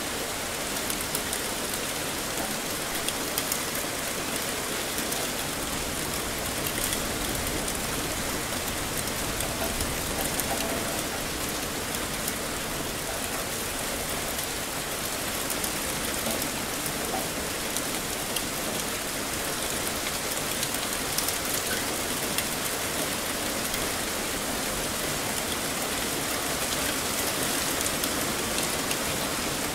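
Heavy rain falling steadily, a dense hiss with many fine drop patters on hard surfaces.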